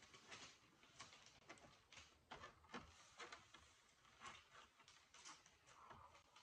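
Near silence, with faint scattered clicks and rustles of hands handling gingerbread pieces and a plastic icing piping bag.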